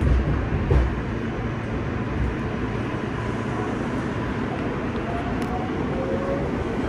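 Steady running noise of a New York City subway L train car in motion, heard from inside the car: a constant rumble of wheels on rails, with two heavy low thumps in the first second.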